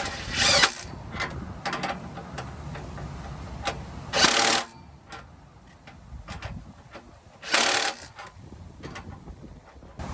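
Three short bursts of a power tool driving exhaust clamp bolts, each about half a second long, with light clicks and knocks of tools and metal between them.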